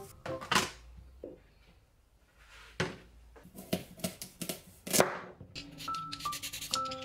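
Plastic bag crinkling, then a few sharp knife strokes through a carrot onto a plastic cutting board, the loudest about five seconds in. Light background music comes in near the end.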